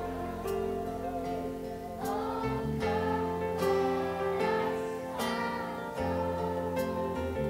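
Instrumental music with plucked string notes over held chords.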